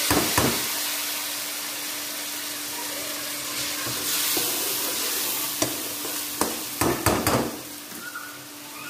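Hot tempering oil in a metal kadai sizzling as ladlefuls of kadhi are poured in and stirred. The hiss is strongest at first and gradually dies down, with a steel ladle knocking against the pan a few times in the second half.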